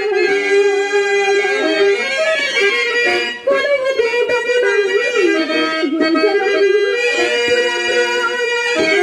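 Harmonium playing a melody in held notes that step up and down, the usual accompaniment of a Telugu padyam stage drama.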